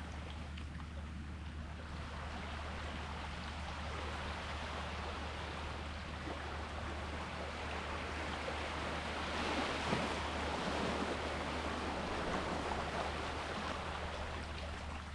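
Sea waves washing in a steady rush, with one wave swelling louder about two-thirds of the way through, over a steady low rumble.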